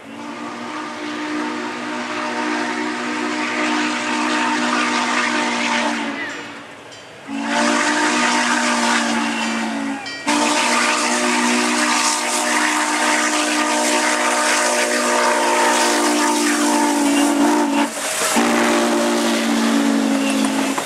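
Norfolk & Western 611's steam chime whistle blowing a chord in long blasts, broken by short gaps, over a steady hiss of steam as the locomotive draws near. The whistle grows louder over the first few seconds.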